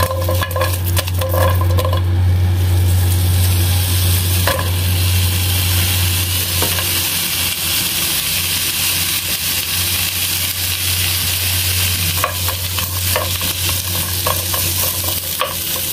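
Sliced onions dropped into a hot, dry nonstick wok, then sizzling as they heat without oil. A wooden spatula stirs and scrapes them near the end, over a steady low hum.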